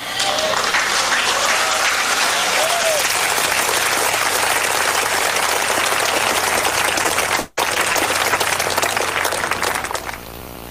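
Large audience applauding, starting suddenly right after a rallying line and dying away about ten seconds in. The sound cuts out for a moment about seven and a half seconds in.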